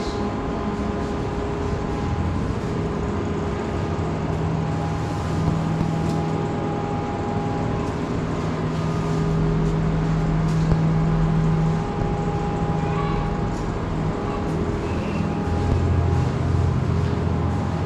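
A steady, low mechanical hum and rumble, with a few held tones.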